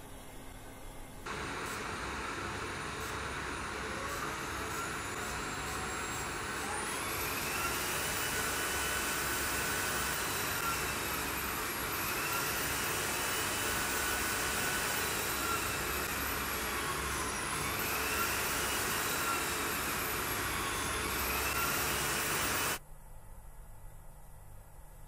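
Hydrogen fuel-cell system running on a test bench: a loud steady rush of air with a high machine whine that sweeps up and down in several long arcs. It starts suddenly about a second in and cuts off suddenly a couple of seconds before the end, leaving a low hum.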